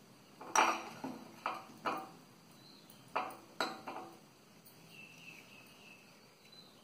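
A spoon scooping peanut butter, clinking against its container about seven times in two quick groups, each clink short with a brief ring.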